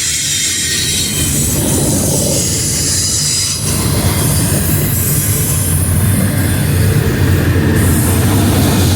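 Freight train rolling past: a steady low rumble, with steel wheels squealing on the rails in a high ringing tone. It gets a little louder a few seconds in.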